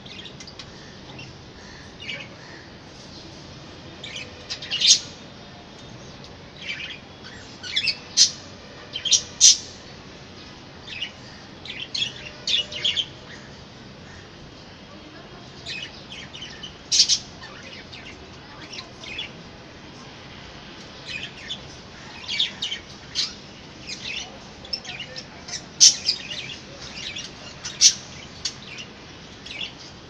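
Caged budgerigars and cockatiels calling: short, high chirps scattered irregularly, with a handful much louder than the rest.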